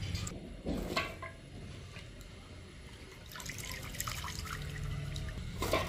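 Water dripping and splashing into a steel bowl of water as handfuls of soaked potato sticks are squeezed out by hand, with a few short splashes.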